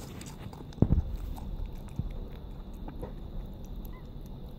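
Pet rabbit chewing tomato close to the microphone: scattered small clicks and smacks, with one louder thump about a second in.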